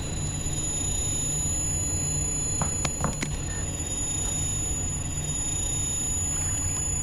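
Eerie horror-film ambience: a steady low hum under a thin, high-pitched whine, with a few sharp crackles about three seconds in.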